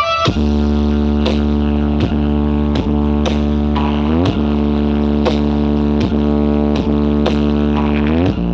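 Music with a deep, steady bass drone and a regular beat of sharp strokes.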